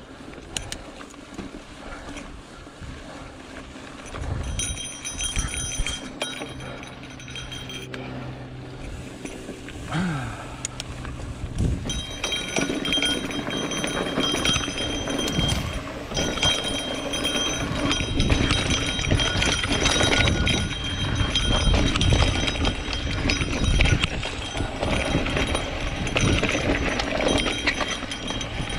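Mountain bike riding downhill on a rocky dirt trail: tyres crunching over dirt and rock, with the bike rattling. It grows louder and rougher about twelve seconds in, with a steady high whine over the noise.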